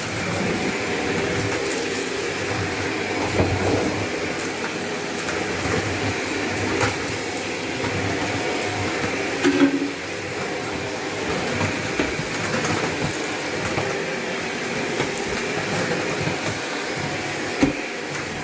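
Shark vacuum cleaner running steadily on a hard floor, with scattered clicks and crunches of debris rattling up into it, a brief louder crunch about halfway and a sharp knock near the end.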